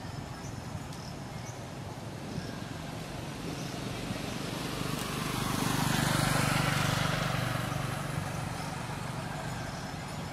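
A motor vehicle passing by: a low engine hum and a rushing noise swell over a few seconds, are loudest about six seconds in, then fade away.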